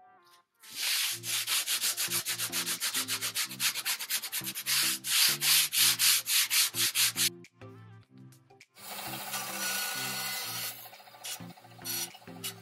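Hand sanding of a thin cut-out wooden panel with a sanding sponge: quick back-and-forth rubbing strokes, about six a second, for some six seconds. About two seconds after the rubbing stops, a couple of seconds of steady machine noise follow, then scattered light clicks.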